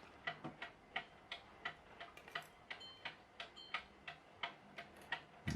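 Wind-up mechanical clock, partly rebuilt with 3D-printed parts, ticking faintly and evenly, about three ticks a second.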